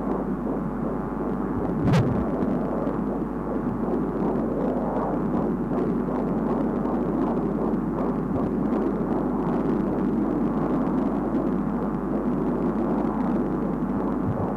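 Fetal heartbeat at 16 weeks heard through a Doppler ultrasound monitor: a steady hiss with the pulse beating through it, and one sharp knock about two seconds in.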